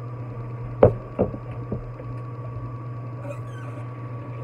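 Three knocks of kitchenware being handled at a sink, the first the loudest, about a second in and then twice more within the next second, over a steady low hum.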